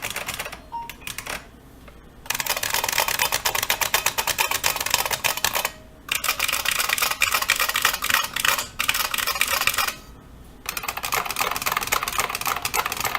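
Standard IBM Model M (1391401) buckling-spring keyboard being typed on fast, a dense clatter of key clicks in several long runs broken by short pauses.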